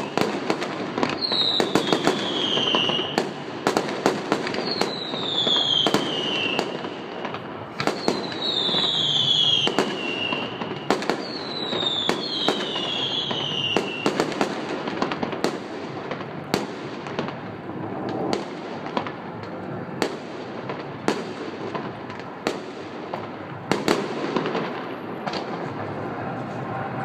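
Fireworks going off: five whistling fireworks over the first half, each whistle falling in pitch, among many sharp bangs and crackles. The bangs thin out over the second half.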